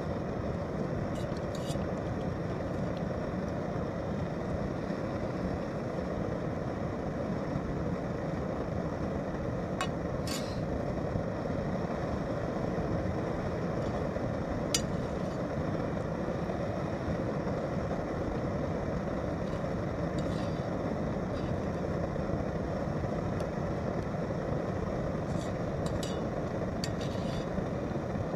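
Primus Omnifuel stove burning steadily under a Trangia kettle, a constant rushing noise. A few sharp clicks of a fork against the frying pan come through it, the clearest about ten and fifteen seconds in and again near the end.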